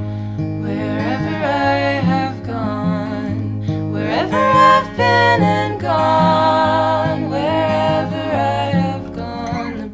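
Live band music: acoustic guitar accompaniment under a melody line that slides between held notes, with no sung words.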